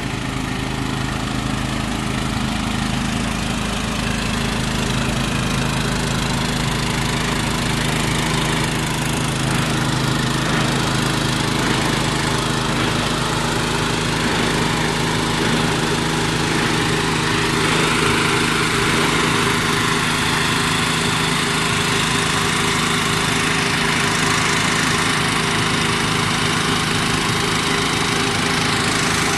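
Generator-driven, air-assisted fog cannon on a dust-suppression truck running: a steady engine sound under the rushing hiss of the fan blowing out fine water mist, which grows a little louder about halfway through.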